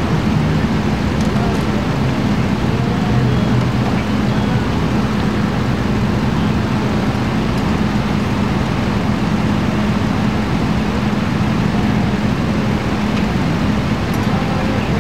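Steady drone of an idling engine with a constant low hum, the sound of emergency vehicles running at the scene.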